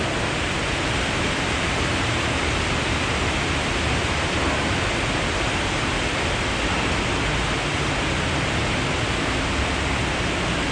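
Steady hiss of rain on the shop's metal roof, even and unbroken throughout.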